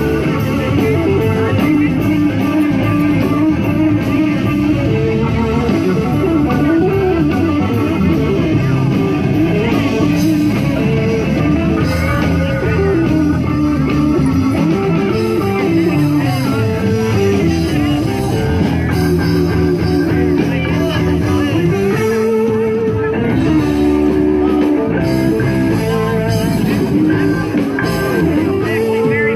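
Blues band playing, with electric guitar carrying the melody over a steady band backing.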